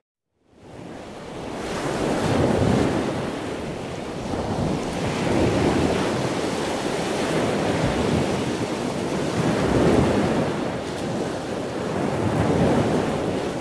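Rushing wind and surf noise with wind buffeting the microphone. It fades in just after the start, then swells and eases every few seconds.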